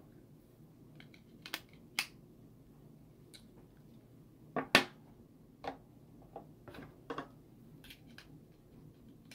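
Small plastic clicks and taps of a Samsung SCH-U540 cell phone and its battery cover being handled. There are several separate clicks; the sharpest comes about halfway through.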